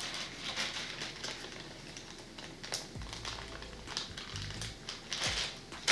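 Plastic soft-bait package crinkling and rustling in the hands, with small irregular crackles, as a soft-plastic craw lure is handled and slid back into its bag.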